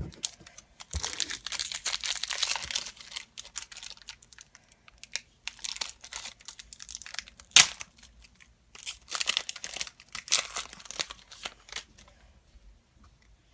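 Crinkling and tearing of a trading-card pack's foil wrapper as it is torn open, in two rustling spells, with one sharp snap a little past halfway.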